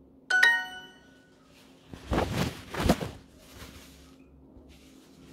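Duolingo app's correct-answer chime: a short, bright ding that rings out and fades about half a second in, marking a right answer. About two seconds in come two loud bursts of rustling noise, a second apart.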